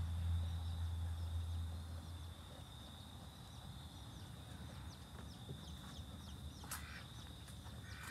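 Outdoor yard ambience: a steady high insect drone with many short bird chirps over it. A low hum fades out about two seconds in, and a few sharp clicks come near the end.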